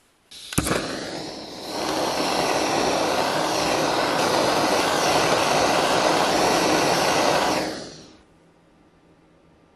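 Jeweller's gas torch flame heating a gold piece set in plaster. A sharp crack as it lights about half a second in, then a steady loud rush of flame that swells about two seconds in, holds for several seconds, and dies away near the end.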